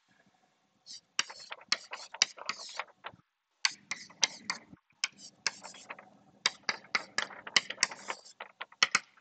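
Chalk writing on a blackboard: a quick, irregular run of sharp taps and short scrapes, with brief pauses a little after three seconds in and around five seconds.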